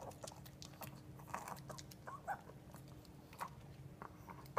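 A Chihuahua eating chicken: quiet, irregular chewing and crunching with short sharp clicks.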